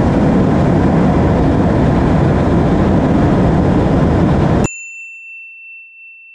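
Loud, steady wind rush over an onboard camera on an electric motorcycle travelling at about 135 mph. About four and a half seconds in it cuts off abruptly and a single bell-like ding rings out and slowly fades.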